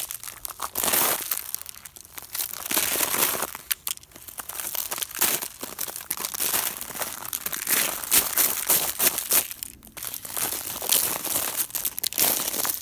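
Hiking boots crunching across grass glazed with freezing-rain ice, the frozen blades crackling and breaking under each step, step after step.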